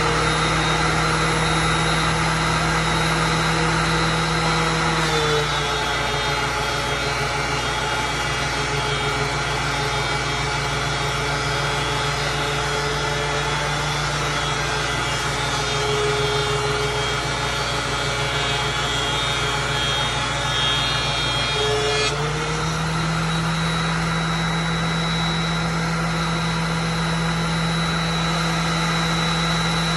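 Oliver thickness planer running steadily. About five seconds in its pitch sags slightly as a white oak board feeds through under load, and about seventeen seconds later the pitch comes back up as the board leaves the cutter.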